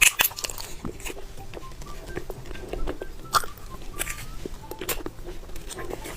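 Close-up chewing of a soft grape gummy candy with a juice-filled centre, heard as irregular clicks from the mouth.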